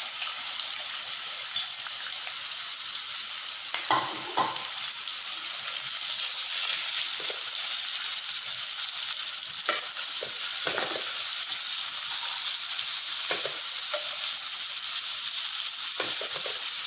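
Sliced onions sizzling in hot oil in a nonstick frying pan, stirred with a wooden spatula that scrapes and knocks against the pan now and then. The sizzle grows louder about six seconds in.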